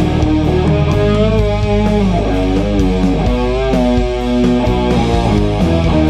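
Two Woodrite electric guitars, a Switchblade and a Firecaster, play a heavy doom metal riff together with a lead line. The lead holds sustained notes that are bent and shaken with wide vibrato.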